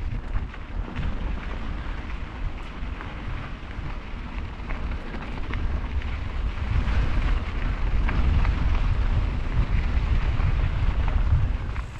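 Wind buffeting the microphone: an uneven low rumble with a hiss above it, growing louder about halfway through, with a few faint clicks.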